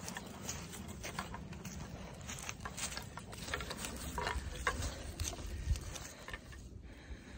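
Irregular crunching and rustling of footsteps through dry grass and brush.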